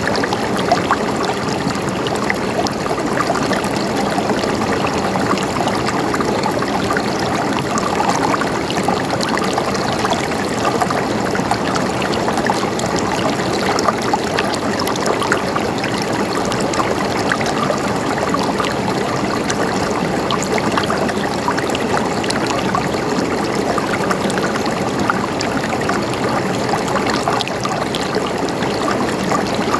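Water flowing and gurgling steadily, as in a small stream, with no break or change.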